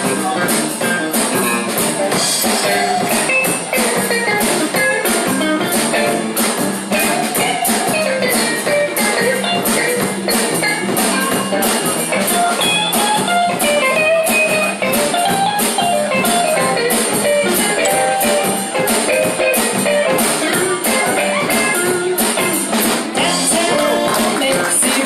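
Blues band playing an instrumental break: a guitar lead with bending melodic lines over bass and a steady drum beat.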